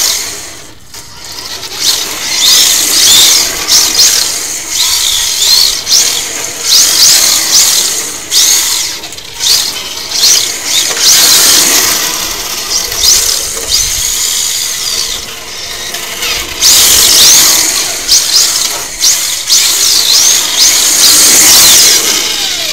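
RC drift car's motor and drivetrain whining close by, the pitch rising and falling again and again with the throttle, over a hiss of the tyres sliding on the asphalt. There is a brief lull about a second in.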